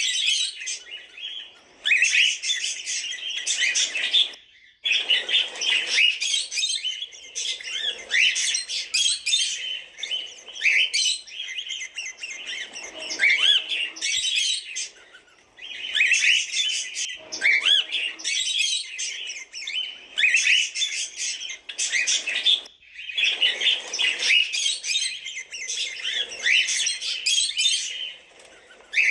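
Cockatiels chirping in quick, dense runs of calls, broken by brief pauses every several seconds.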